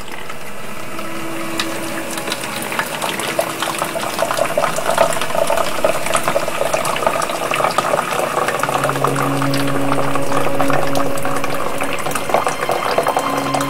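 Keurig single-serve coffee maker brewing, with gurgling and crackling hot water. A low, steady droning hum joins about nine seconds in.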